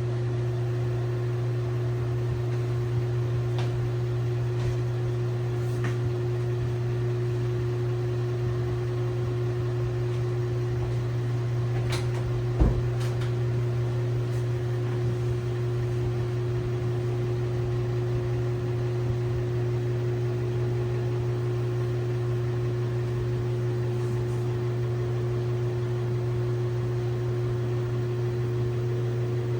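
LG WT7600HVA top-load washing machine running with a steady, even hum, with a single sharp knock about twelve seconds in.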